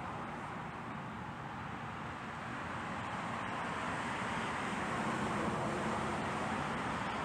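Steady hiss and rumble of vehicle noise, swelling slightly about halfway through.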